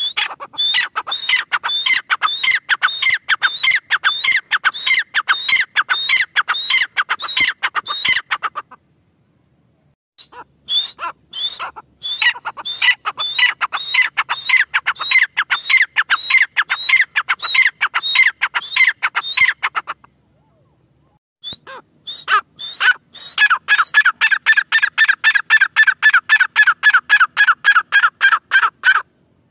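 Grey francolin calling: three long runs of rapid, shrill repeated notes, about three a second, with short pauses between them. The last run is lower-pitched and more even.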